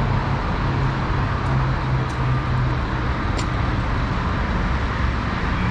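Steady low mechanical hum at a truck-stop diesel fuel island, over an even background noise.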